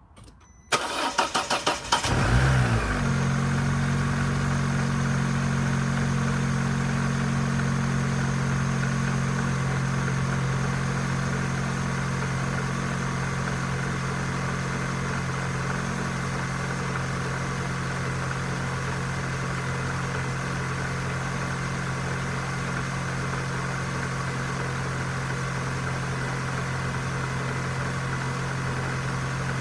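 2001 Vauxhall Corsa C 1.4 16V four-cylinder petrol engine cold-started: it cranks for about a second, catches with a brief flare, then settles into a steady idle that eases down a little about ten seconds in. At this cold stage it runs without the ticking that, according to the owner, only starts once the engine is warm.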